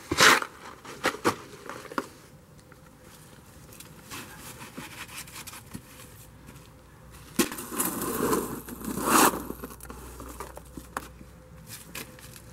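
Wooden stick tamping and working wet concrete down around wooden posts in a post hole. A few sharp knocks come in the first two seconds. About seven and a half seconds in, a louder stretch of scraping and crunching follows.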